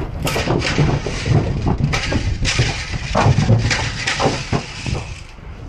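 Calves shuffling through a metal livestock trailer, their hooves knocking and clattering on the floor and walls, with a plastic rattle paddle rattling as it is shaken behind them to drive them forward.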